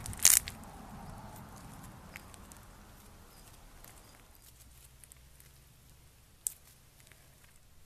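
Crunchy slime being pressed and squeezed by hand: a loud crackle just after the start, faint scattered crackles for the next second or two, and a single sharp pop near the end.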